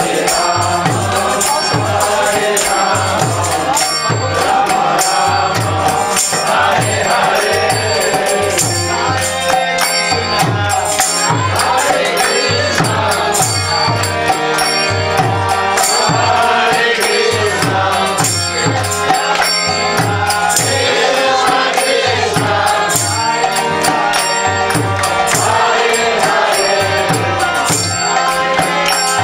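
A group of voices chanting a kirtan together, with a drum beating a steady low rhythm and hand percussion clicking in time.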